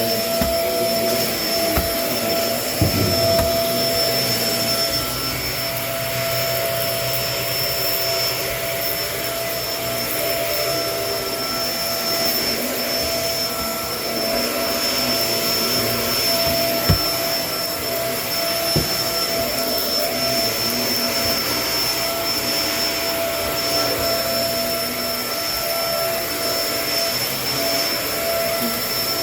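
Kenmore vacuum cleaner running steadily: a high motor whine over a rush of air, with a few brief knocks as it works.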